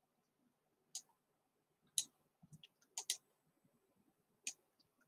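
Computer mouse button clicking softly: single sharp clicks roughly a second apart, with a quick pair of clicks about three seconds in.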